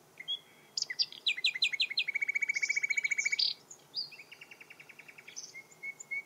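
Songbird singing: a few short downward-sweeping whistled notes, then a rapid trill about two seconds in. A softer trill follows about a second later, with scattered chirps near the end.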